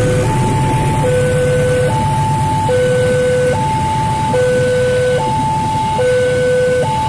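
Railway level-crossing warning alarm sounding a steady two-tone signal, alternating a low and a high tone about every 0.8 s, over the low rumble of a passing train of freight cars.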